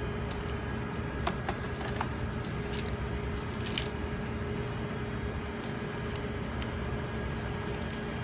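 Steady urban background rumble of traffic, with a constant low hum running through it and a few faint light clicks.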